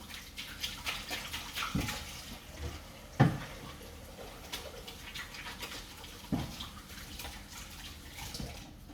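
Water running from a tap into a sink, with a few knocks about 2, 3 and 6.5 seconds in.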